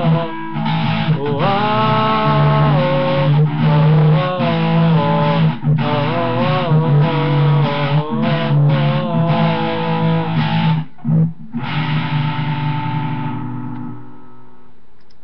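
Strummed guitar with wordless sung 'whoa' vocals gliding over it; the playing winds down and the last chord fades out near the end.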